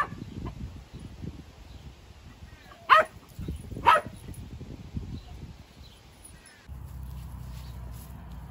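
Mini Australian Shepherd puppy barking: one sharp bark at the start and two more about three and four seconds in, with rustling in between. A steady low hum sets in near the end.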